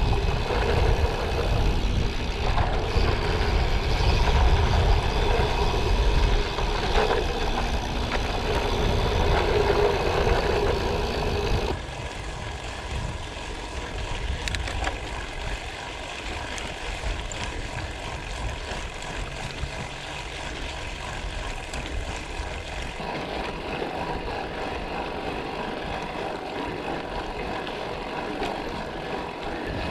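Ride noise from a gravel bike underway: tyres rolling over gravel with wind buffeting the camera's microphone. The wind rumble drops away sharply about twelve seconds in, leaving a quieter, even rolling noise.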